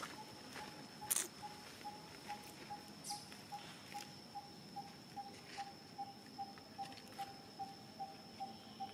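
Outdoor ambience: a steady high insect whine under an even series of short, identical mid-pitched calls, about three a second, with a sharp click about a second in.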